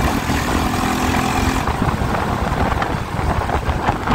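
Motorcycle running at road speed, its engine heard under heavy wind rumble on the rider's microphone.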